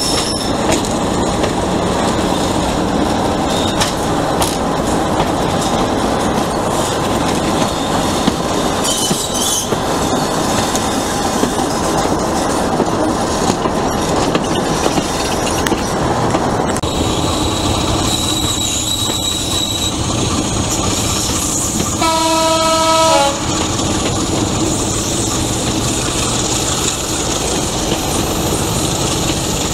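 Diesel-hauled train on the move, with steady wheel-on-rail and engine noise. One loud horn blast lasts about a second, roughly two-thirds of the way through.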